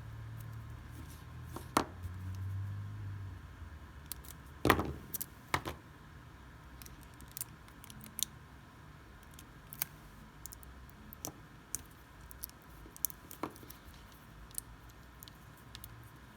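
Scattered small clicks and taps, like small parts and tools being handled, with a low rumble in the first few seconds and sharper knocks about two and five seconds in, then lighter ticks every second or so. A faint steady electrical whine sits underneath.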